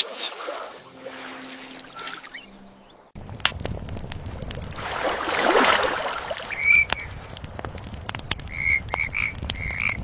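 Water splashing and dying away over the first few seconds. After an abrupt change, a campfire crackles with sharp pops and a swell of noise in the middle, while short high chirping calls sound once and then several times near the end.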